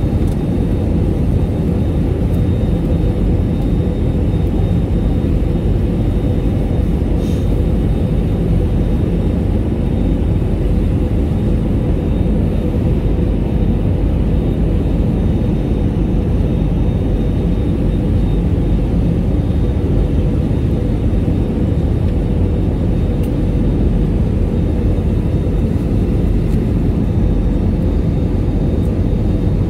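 Steady rumble of airliner cabin noise inside an Airbus A320 on final approach, engine and airflow noise with a faint steady whine running through it.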